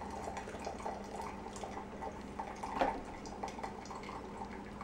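Hot water from a gooseneck kettle poured into the paper filter of a Bee House ceramic pour-over dripper, trickling and dripping into a glass carafe below: rinsing and preheating the filter and brewer. About three seconds in there is a single clunk as the kettle is set down on its base.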